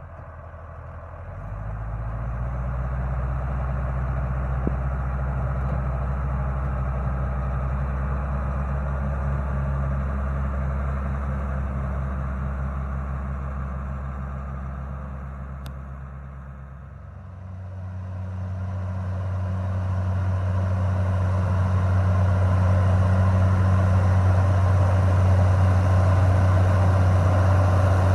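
Twin-turbine airblast orchard sprayer and the machine driving it running with a steady engine-and-fan hum. The hum builds in the first two seconds, dips around two-thirds of the way through, then comes back louder at a different pitch.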